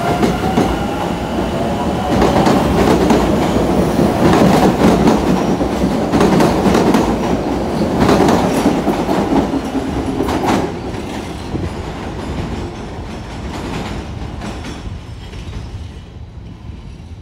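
New MBTA Orange Line subway train (CRRC-built car) pulling out of the station: a rising motor whine as it starts off, then the rumble of the passing cars with wheels clicking over rail joints. From about ten seconds in the sound fades as the train goes off into the tunnel.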